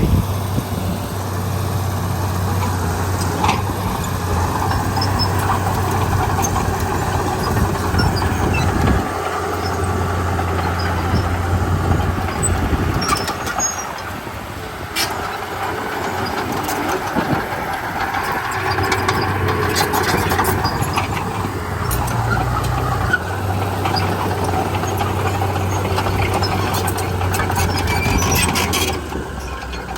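Komatsu D31P bulldozer's diesel engine running under load, its low drone shifting pitch as the machine works, with short squeaks and clanks from the tracks and blade.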